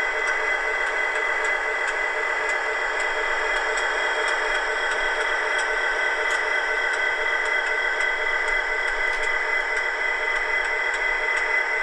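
Dapol OO gauge Class 59 model locomotive's sound decoder playing a steady diesel engine sound through its tiny onboard speaker, thin and without bass, as the model moves slowly. Faint regular ticks run through it.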